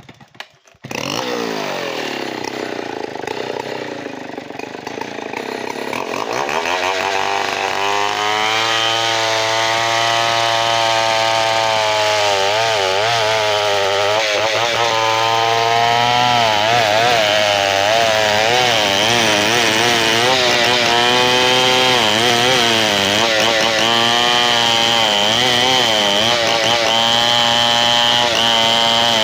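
Large two-stroke chainsaw running. It starts about a second in, revs up near six seconds, then runs hard under load through a log, its engine pitch wavering as the chain bites into the wood.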